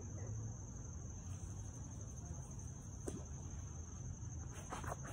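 Crickets trilling steadily in a high, even chorus, with a faint click about three seconds in and a few short noises near the end.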